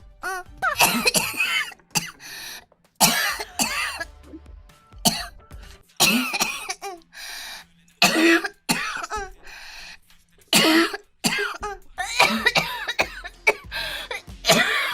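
A girl coughing over and over in fits of several harsh coughs each, with short pauses between the fits.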